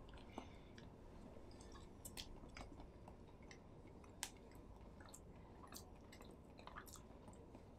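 Faint chewing of bites of a soft chocolate-filled Danish pastry, with scattered small clicks from the eaters' mouths.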